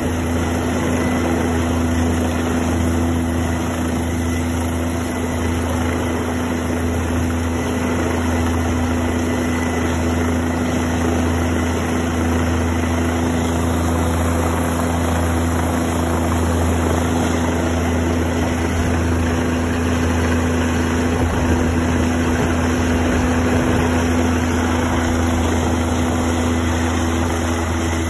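Helicopter hovering close overhead with a tank slung on a long line: its rotor and engine run loud and steady, with no rise or fall in pitch.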